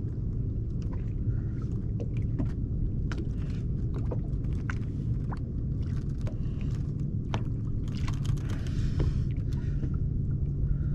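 Steady low rumble under scattered small clicks and rattles, as the treble hooks of a deep-diving crankbait are worked loose from a landing net.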